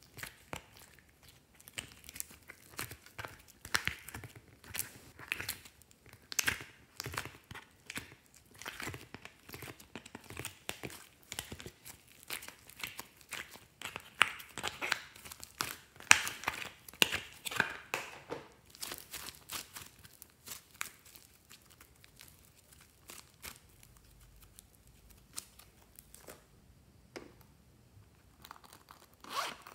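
Slime being squeezed and pried out of a thin, flexible plastic mould: irregular crinkles, crackles and sticky pops from the plastic and the slime, thinning out after about twenty seconds.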